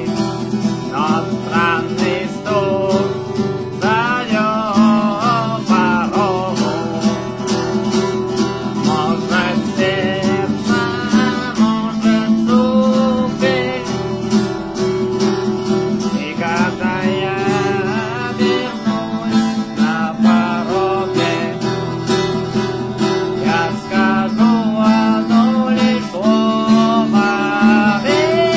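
Music: a song's instrumental passage with acoustic guitar and a wavering melody line over steady low notes.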